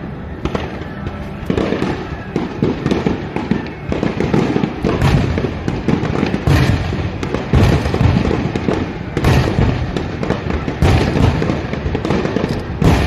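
Aerial fireworks going off in quick succession. Sharp bursts come about once a second, overlapping with the crackle of the shells.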